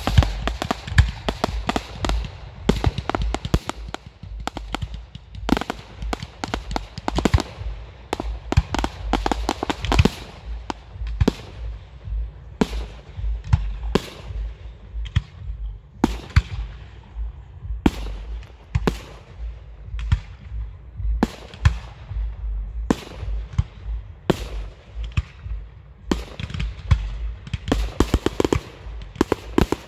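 Aerial firework shells bursting in a long series of sharp bangs. The reports come thick and fast at first, then fall into separate bangs about one or two a second, and crowd together again near the end.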